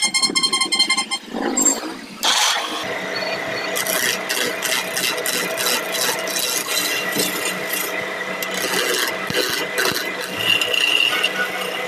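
A wood lathe running while a chisel roughs down a square wooden blank, the spinning corners striking the tool in a rapid, even clatter over a steady motor hum; the cutting starts about three seconds in. Before it, a second or so of music.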